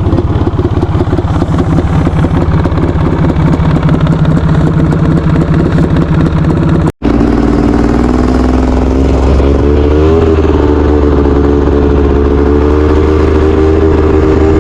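An engine running steadily, in two stretches joined by a brief cut; in the second its pitch wavers and shifts about ten seconds in.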